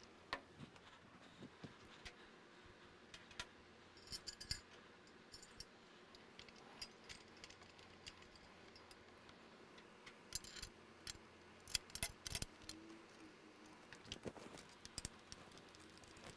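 Scattered light metallic clicks and clinks of small hardware (bolts, washers and spacers) being handled, and of a tubular engine protection bar being fitted to a motorcycle and its bolts run in finger tight with a hand driver, over near silence. The clinks come closest together about two thirds of the way through.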